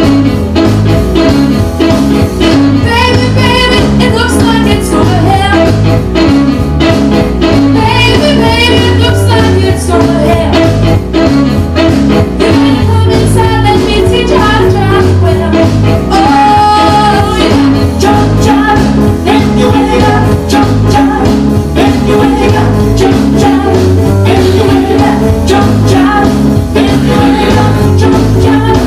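A recorded song playing: a singer over a band with a steady beat, the voice coming in about three seconds in.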